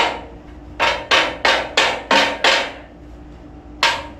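Hammer tapping a corroded flex plate onto a small-block Chevy crankshaft: sharp ringing metal strikes, one at the start, then a quick run of about six at roughly three a second, a pause, and another strike near the end. The plate is binding on a rusty spot that could not be cleaned, so it will not seat.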